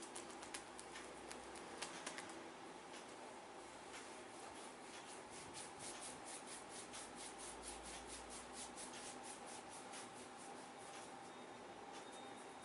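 Hands working over a head in a massage: a quick, even run of light rubbing or patting strokes on the hair and scalp, about five a second, faint, with a few sharper clicks in the first couple of seconds.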